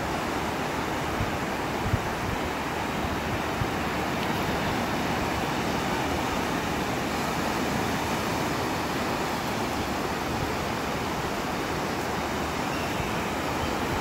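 Ocean surf breaking steadily on the shore, with wind buffeting the microphone in low rumbles.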